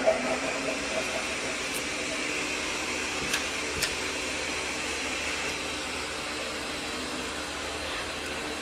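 Steady fan-like mechanical rushing noise with a faint hum, starting abruptly. Two light clicks come a little past the middle.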